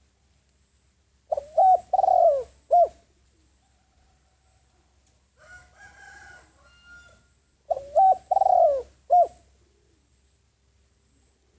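Spotted dove cooing: two phrases of about four notes each, some six seconds apart.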